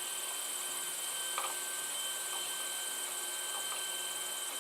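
Protomaker FDM 3D printer running mid-print: a steady hum and hiss with thin steady whining tones and a faint tick about a second and a half in.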